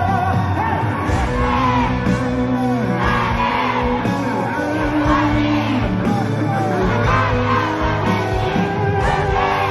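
Live rock band playing an instrumental passage in a concert hall: a held vocal note ends at the start, then bass and held chords continue under many short high shouts and screams from the audience.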